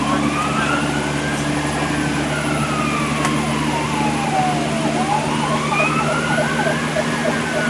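Fire engine siren in a slow wail, rising for about two seconds and falling for about three, over the steady drone of the fire engine's motor as heard inside the cab. About five seconds in, a faster warbling tone of about four beats a second joins it.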